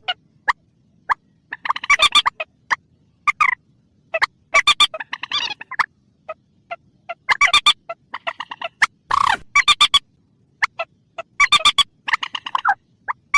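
Recorded lure call of a mandar, a rail-family waterbird: bursts of rapid, stuttering clucking notes that repeat every second or so, separated by short silent gaps.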